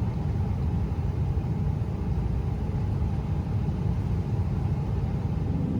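Airliner engine noise heard inside the cabin: a steady low rumble with a faint hum above it, swelling louder right at the end.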